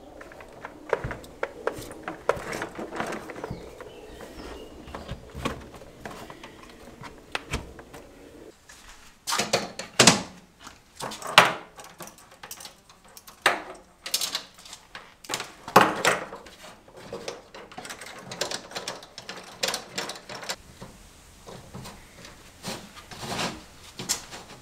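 Handling noises from wiring work at a wooden shelf: irregular clicks, knocks and rustles of cables, tools and a length of model railway track. The knocks and scrapes come thickest and loudest through the middle stretch.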